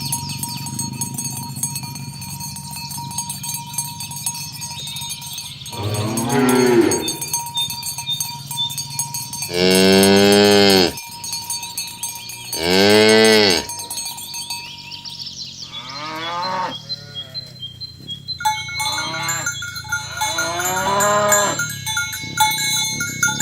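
Cattle mooing, about six long drawn-out calls from more than one cow, the loudest two about ten and thirteen seconds in. Steady bell-like ringing tones run underneath.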